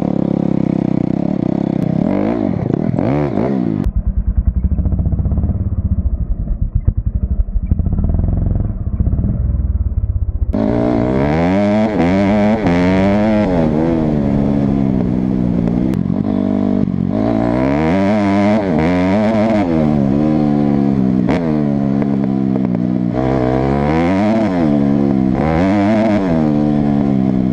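2008 Honda CRF250R single-cylinder four-stroke motocross engine breathing through an Akrapovic slip-on exhaust. It is revved at first, then settles for several seconds into a low, rapidly pulsing idle. From about ten seconds in it is blipped over and over, the pitch rising and falling with each rev.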